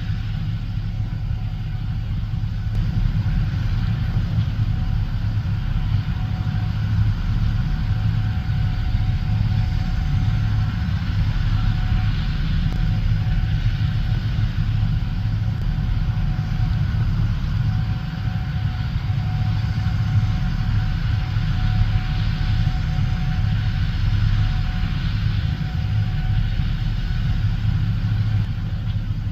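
Heavy farm machinery running steadily under load during corn harvest: a deep, even engine rumble with a faint steady whine that comes and goes.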